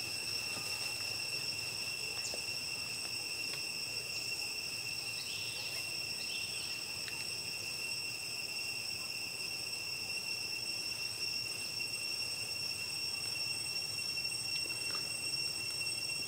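Insects trilling in one steady, unbroken high-pitched tone, with a few faint short chirps about five to seven seconds in.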